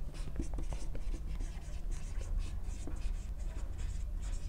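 Marker pen writing on a whiteboard: a quick run of short strokes, over a low steady hum.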